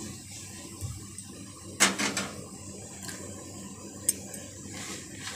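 Metal spatula scraping and clinking against a steel kadai as frying masala is stirred, with one sharp clatter about two seconds in and a smaller click about four seconds in.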